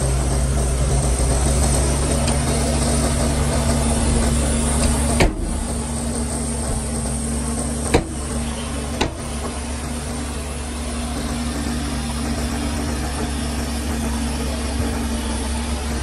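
Heavy diesel engine of earthmoving machinery running steadily, with three short sharp clicks about five, eight and nine seconds in.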